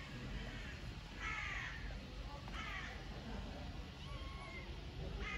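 A crow cawing several times, short harsh calls spaced a second or two apart.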